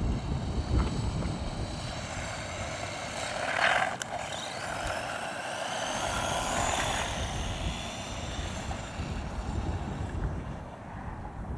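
Electric motor and drivetrain of a 1/18-scale four-wheel-drive RC truck whining at speed, the pitch rising and falling as it accelerates and slows. There is a louder rush about four seconds in, with a low rumble underneath.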